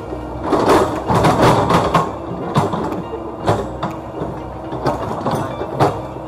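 Komatsu PC78UU mini excavator digging: its diesel engine runs steadily while the bucket and boom give a series of clanks and knocks, loudest in a cluster during the first two seconds, then single knocks about once a second.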